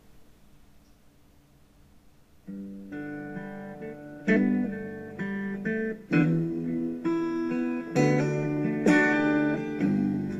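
Background music: the last song's faint tail, then an acoustic guitar intro starts about two and a half seconds in, strumming chords that get louder from about four seconds in.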